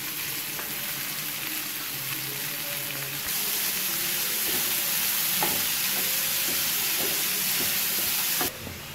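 Chopped onions sizzling as they fry in hot ghee in a pan, stirred with a spatula that scrapes a few times. The sizzle grows louder about three seconds in and drops away suddenly near the end.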